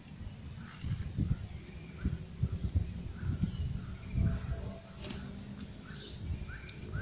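Small birds chirping, short repeated calls that come more often toward the end. Under them are irregular low bumps and rumble on the microphone.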